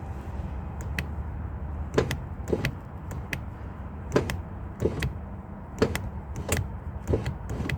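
A power window on a 2002 Honda Odyssey being worked: a steady low motor hum with about ten sharp clicks and knocks, the glass appearing to be off its track.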